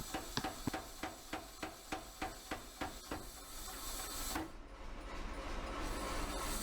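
A 150-pound mechanical power hammer striking hot steel in a quick even rhythm, about three blows a second, for about three seconds. The blows then stop and a steady hiss is left.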